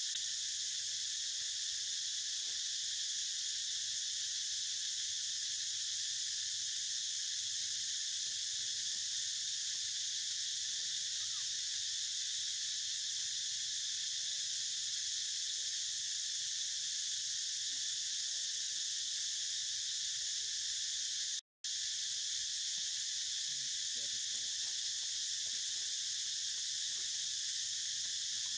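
Steady, unbroken buzzing chorus of insects, with one momentary dropout about three-quarters of the way through.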